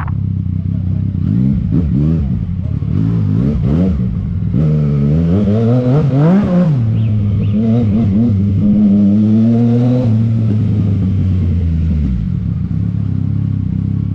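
Yamaha MT-09 SP's inline three-cylinder engine at low riding speed, its revs rising and falling with short throttle blips. About six seconds in the engine revs up higher and falls back, then runs steady and drops to a lower idle near the end.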